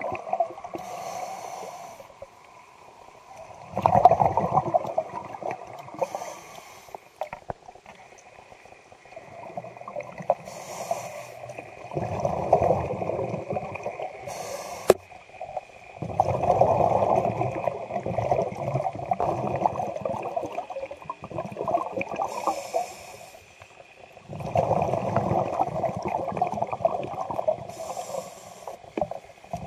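Scuba diver breathing through a regulator underwater: a short hiss on each inhale, then a long burst of rumbling exhaust bubbles on each exhale, repeating over several breaths.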